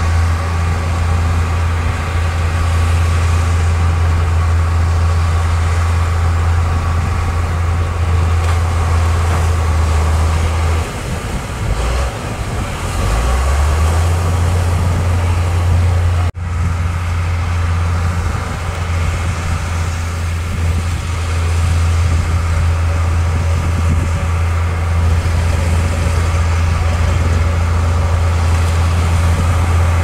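Crawler bulldozer's diesel engine running under load as it pushes soil, a steady low drone. It wavers briefly about eleven seconds in and breaks off for an instant a little past the middle.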